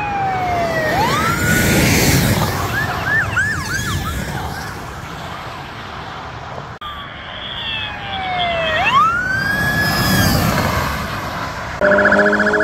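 Police cruiser sirens going by at speed, twice: a wail that falls and sweeps back up, with a quick run of short yelping chirps, over the rush of engines and tyres as the patrol cars pass. Near the end a steady droning tone cuts in abruptly.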